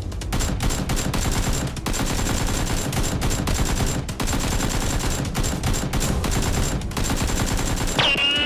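Rapid, continuous automatic gunfire, shot after shot with no break. Near the end a person's voice breaks in with a yell.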